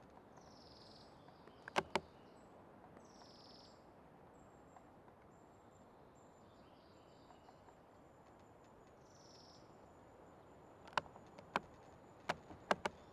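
Old tree creaking in short, sharp squeaks: two near the start and a quick run of five near the end, over a steady forest hiss. Birds call between the creaks with short high notes falling in pitch, and a faint high steady insect-like buzz runs underneath.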